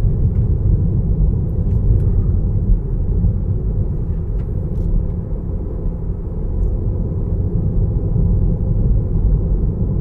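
Steady low rumble of tyre and wind noise inside a moving Tesla electric car's cabin, in strong gusty wind.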